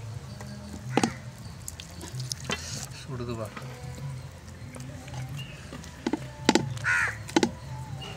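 Boiled chicken being pulled apart by hand over a steel plate and bowl: soft, wet tearing with a few sharp clicks of fingers and pieces against the steel.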